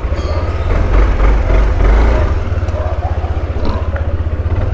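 Yamaha scooter's engine running and pulling away, a steady low drone with a fast, even pulse.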